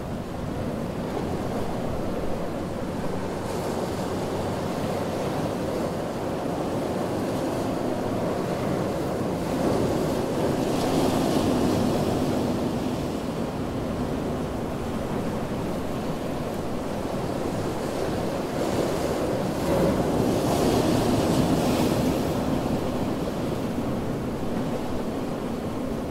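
Ocean waves on a beach: a steady rush of surf, with two waves breaking louder, about ten seconds in and again about twenty seconds in, each bringing a brighter hiss of foam.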